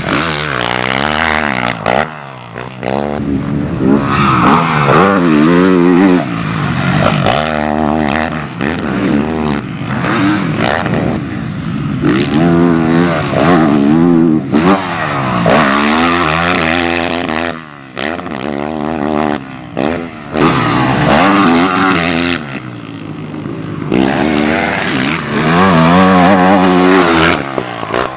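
Yamaha YZ450F single-cylinder four-stroke motocross bike revving hard and falling back again and again as the rider works the throttle and shifts around the track, its pitch repeatedly climbing and dropping.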